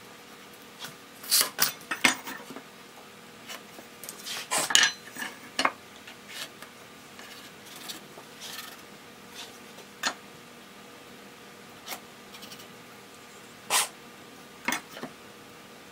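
Irregular clinks and taps of a steel square and steel rule being handled on a wooden board, with short pencil strokes scratching marking lines. The clicks come in scattered clusters, loudest about a second in, around four to five seconds in and near the end.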